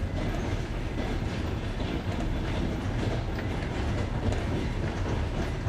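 Passenger train carriage running on jointed rails, heard from inside the train: a steady rolling rumble with the wheels clicking over rail joints.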